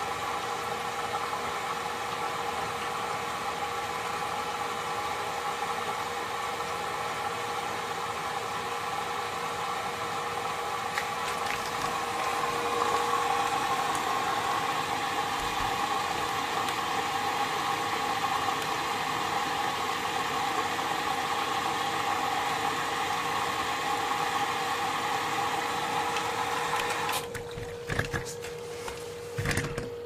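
Logik L612WM13 washing machine on an eco wash, its drum motor running with a steady whine as the drum turns. It gets a little louder about halfway through, then stops suddenly near the end, followed by a couple of short knocks.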